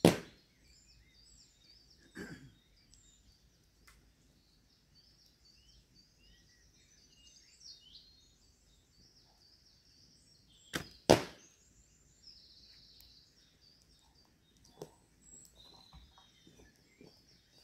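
Heavy-draw longbow loosing arrows: a sharp snap of the string right at the start and again about eleven seconds in, with a duller thud about two seconds after the first shot. Birdsong runs throughout.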